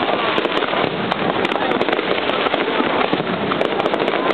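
Aerial fireworks bursting in quick succession: a dense, continuous stream of bangs and crackling with no pause.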